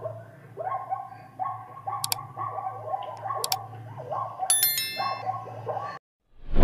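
Zebra calling: a string of short, yapping barks, about two a second. A brief high ding sounds about four and a half seconds in.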